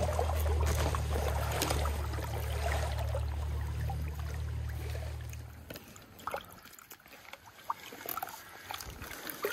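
Flowing river water with a steady low rumble that cuts off about six seconds in. After that come quieter scattered small splashes and clicks of water around a king salmon held on a stringer in the shallows.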